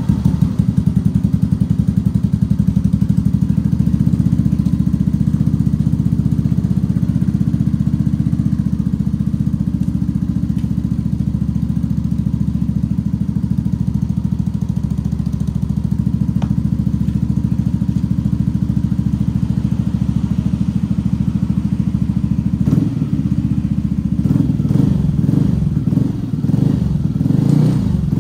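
Yamaha NVX scooter's single-cylinder engine idling through an R9 racing slip-on exhaust, a very open, free-flowing pipe, as a fast, even low pulsing. It turns louder and less even in the last few seconds.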